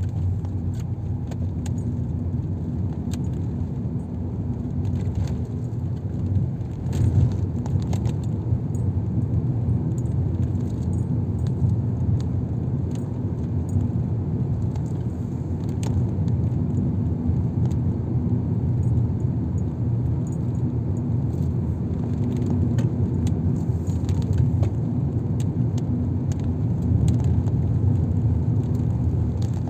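Car driving, heard from inside the cabin: a steady low engine and road noise, with frequent small rattles and clicks throughout.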